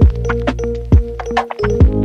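Background music with a beat: a deep kick drum that drops in pitch about once a second, over held bass and chord notes, with lighter percussion hits in between.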